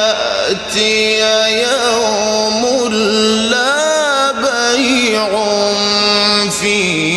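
A man reciting the Quran in a melodic, drawn-out style, holding long ornamented notes that waver and bend in pitch.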